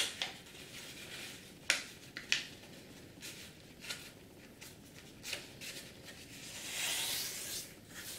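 A sheet of A4 paper being folded and creased by hand: several short crackles and taps as the tab is bent over, then a longer swish near the end as a fingernail runs along the fold to flatten it.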